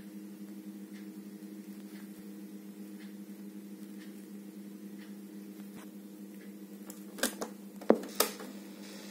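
Mechanical clicks of the piano-key buttons on a Philips AM 174 portable cassette player being pressed, a quick cluster of clacks near the end with one loudest snap. A steady low hum runs underneath.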